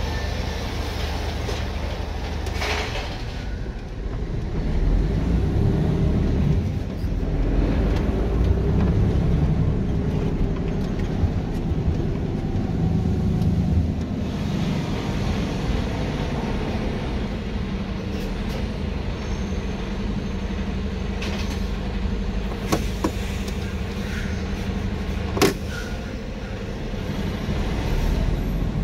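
Truck engine running with a steady low rumble, with scattered clicks and knocks and a sharp knock about 25 seconds in.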